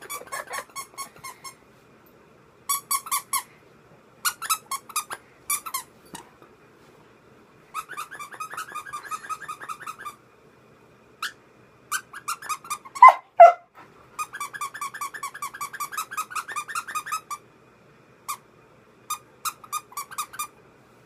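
A dog's broken squeaky toy squeezed over and over, giving fast strings of squeaks in bursts of one to three seconds with short pauses between. A little past the middle comes one louder squeal that falls in pitch.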